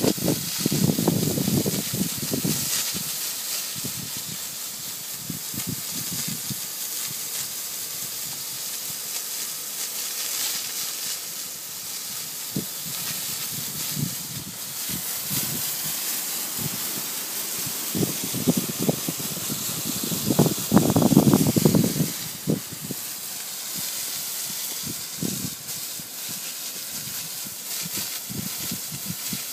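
Ground-level irrigation sprinkler jetting water and spray low across sandy turf: a steady hiss, with low rumbling swells near the start and again about two-thirds through.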